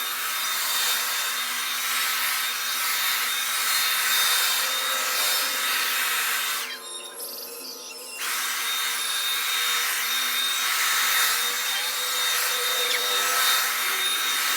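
Hand-held hair dryer blowing steadily, a hiss of air with a thin whine on top. It drops away for about a second and a half about seven seconds in, then comes back.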